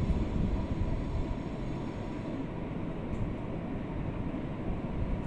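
Hot water poured into a pan of simmering chicken curry on a gas stove, then stirred with a spatula, over a steady low rumble.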